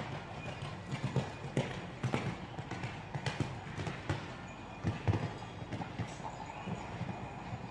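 Hoofbeats of a horse cantering on sand arena footing, a beat every half second or so, loudest about five seconds in.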